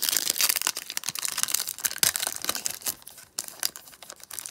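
Foil wrapper of a trading-card pack crinkling and tearing as it is handled and opened: a rapid, uneven crackle.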